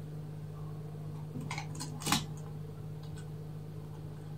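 A few short clicks and scrapes, about a second and a half to two seconds in, from hands handling the plastic intercom door panel and its wires, over a steady low electrical hum.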